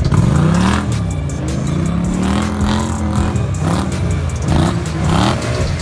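ATV engines revving up and down repeatedly as the quads plow through deep pond water, with water splashing and churning around them.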